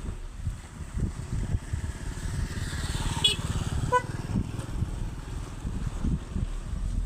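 A motor running with a rapid low pulsing, with wind buffeting the microphone, and a brief pitched tone about four seconds in.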